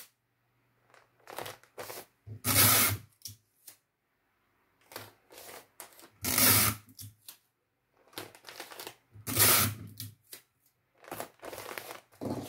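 Adhesive tape pulled off a desktop tape dispenser and torn off in strips, a loud rip about every three seconds, with the plastic mailer bag rustling as the tape is pressed down between pulls.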